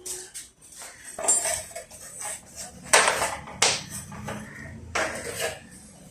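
Metal tools and parts clinking and knocking during work on a motorcycle's front fork: a handful of sharp metallic strikes with a short ring, irregularly spaced, the loudest about three seconds in.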